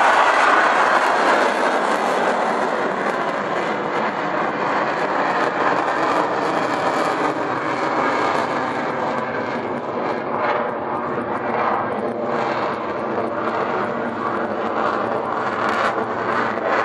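Military fighter jet's engine noise as the jet climbs away overhead, loudest at the start and slowly fading.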